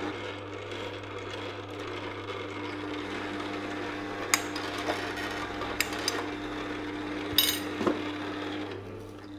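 Green Star Elite twin-gear juicer's motor running with a steady low hum. A few sharp knocks in the second half come as frozen strawberry and banana pieces are handled and dropped onto its feed tray.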